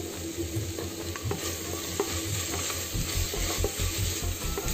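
Onion-tomato masala sizzling in the oil of a pressure cooker pot while a wooden spatula stirs it, scraping and knocking against the metal. The stirring settles into regular strokes in the second half.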